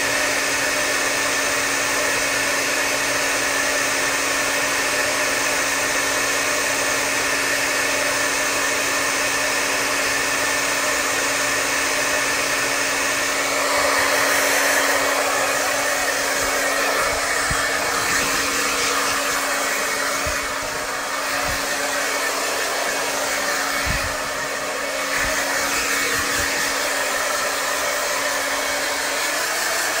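Electric hair dryer running continuously: a steady rush of blown air over a constant motor hum. Partway through it briefly swells louder, then a few low thumps and two short dips in level follow.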